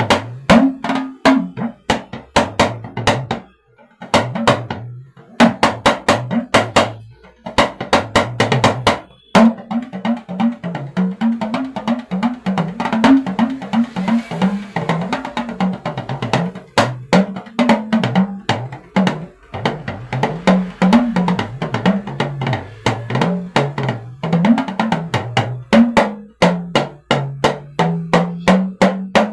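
Talking drum played by hand with a curved stick in fast rhythmic phrases, its pitch bending up and down as the tension cords are squeezed. It is being sound-checked for pitch, resonance and mid tones. There are two short pauses, near the start and about nine seconds in.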